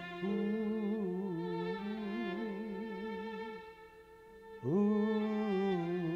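Slow music on a bowed string instrument, long held notes with vibrato. It drops away briefly about four seconds in, then comes back with a quick upward slide into a louder held note.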